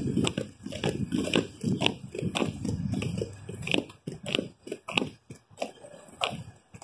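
Skate wheels rolling on a concrete sidewalk, with a low rolling noise and many irregular clicks and knocks. The rolling noise drops away about four seconds in, leaving scattered clicks.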